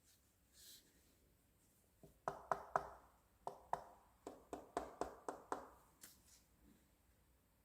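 About a dozen sharp taps or knocks on a hard object in quick, uneven succession, each with a short ringing tail.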